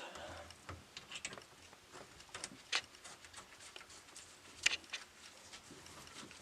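Scattered light clicks and taps of hands working a kitchen faucet's supply-line fittings, with two sharper clicks a few seconds in.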